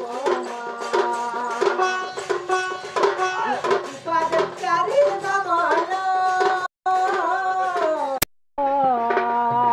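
Folk dance music: a harmonium holds sustained chords and melody over steady hand-drum beats. The sound cuts out for a moment about two-thirds of the way through, then again just after a sharp click near the end.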